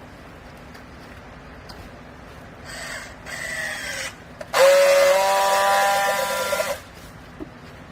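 Vertical hydraulic clothes baler running with a steady low hum. Midway there is a noisy burst with falling tones, then a louder, roughly two-second whining burst with a steady pitch that cuts off sharply.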